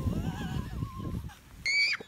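Wind rumbling on the microphone with a thin, wavering high-pitched cry over it. Near the end the rumble cuts off and a louder, shrill squeal starts.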